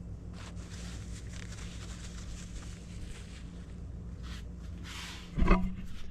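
Faint scratching and handling noises from working on engine parts over a steady low hum, then a single loud knock with a short ring about five and a half seconds in.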